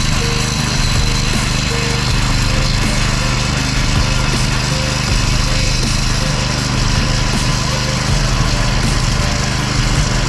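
Small engine of concrete-finishing equipment running steadily at a constant speed.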